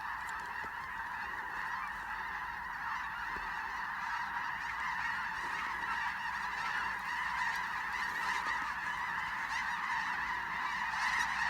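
A large flock of snow geese calling continuously overhead, a dense din of many overlapping high-pitched honks.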